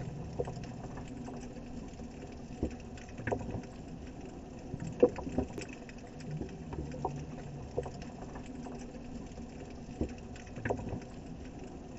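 Quiet sea water lapping and slapping irregularly against a boat hull, with scattered light knocks and splashes.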